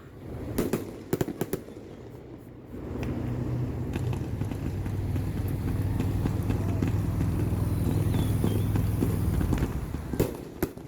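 Fireworks going off with a few sharp bangs and crackles. After about three seconds a steady low engine rumble from a nearby vehicle takes over for several seconds, and more firework bangs come near the end.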